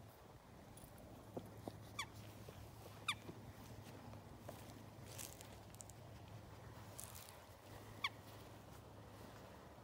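Three short, high squeaks, each falling quickly in pitch, about two, three and eight seconds in, from a small rubber ball as a dog mouths it on the grass. Soft clicks and faint rustling come between them.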